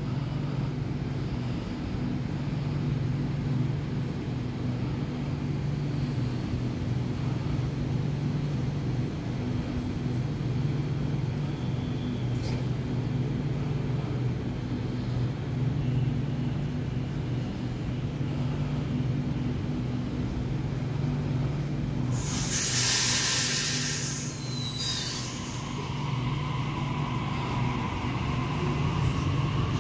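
Double-deck electric passenger train standing at a platform with its equipment humming steadily. About three-quarters of the way through, a loud hiss of released air sounds for a few seconds. The train then pulls away with a rising electric motor whine.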